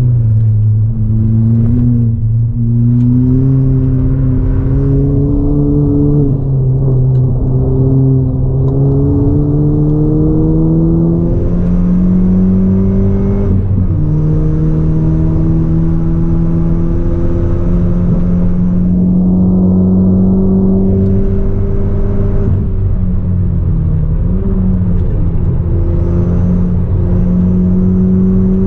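Ford Fiesta ST180's turbocharged 1.6-litre four-cylinder engine, with a 3-inch Gravity Performance exhaust and ITG intake, heard from inside the cabin under track driving. The revs climb slowly in long pulls and dip briefly a few times (about six seconds in, midway, and again a little past two-thirds of the way) before climbing again.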